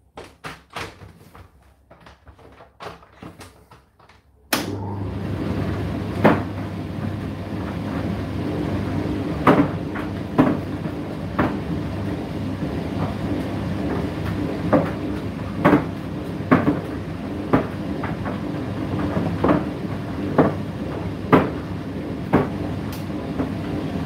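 A run of light clicks, then about four and a half seconds in the Indesit IDC8T3 condenser tumble dryer starts suddenly: a steady motor hum as the drum turns, with irregular knocks about once a second as the load tumbles in the drum.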